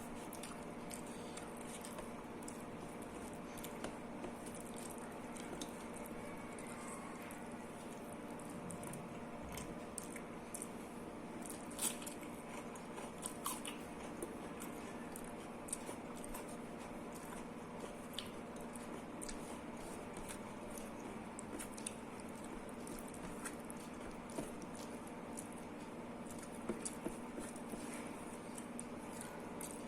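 Close-up eating sounds: wet, squishy chewing of dal and rice with scattered sharp clicks and occasional crunches, over a steady background hum.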